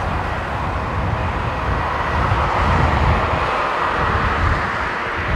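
Boeing 777-300ER's twin GE90-115B turbofans at takeoff thrust as the airliner climbs away: a loud, steady rushing noise over an uneven, rumbling low end.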